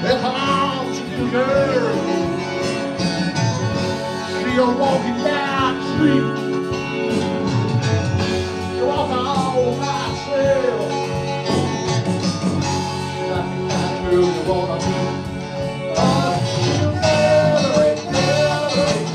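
A band playing a song live on electric guitars and keyboard, with a lead line whose notes bend up and down and percussive hits that grow stronger near the end.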